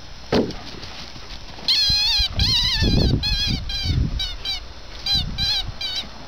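Rubber chicken dog toy squeaking as a dog chomps it in his mouth: about ten short squawks with a wavering pitch, starting a little under two seconds in.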